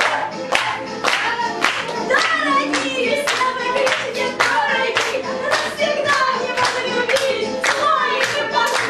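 A song sung with music and steady rhythmic clapping in time, about two claps a second.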